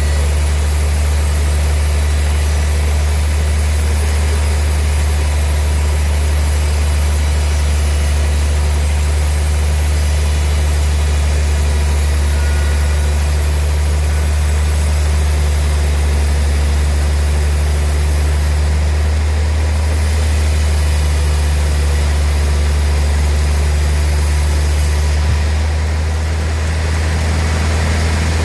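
Sawmill machinery running steadily with a loud, constant low hum and a noisy whir above it.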